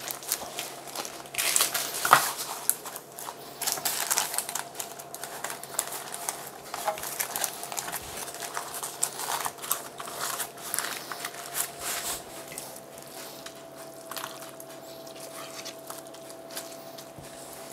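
Baking paper crinkling and rustling as a sheet of ready-rolled puff pastry is unrolled and smoothed onto a metal baking tray, in irregular short crackles with a few light knocks, the sharpest about two seconds in.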